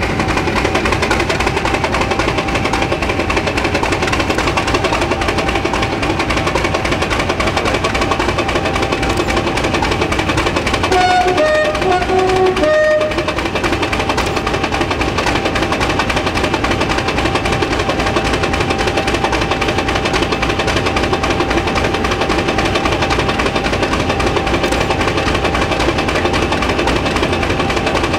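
Class 50 diesel locomotive's English Electric 16-cylinder engine idling steadily after a cold start: a low engine beat with a steady high whine over it. About halfway through, a locomotive horn sounds a few short two-tone notes.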